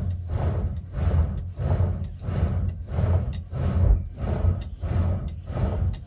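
Clay pot bellows pumped by hand with two sticks, giving a rhythmic whoosh of air about every two-thirds of a second. Each blast drives air into a charcoal furnace and fans up its fire.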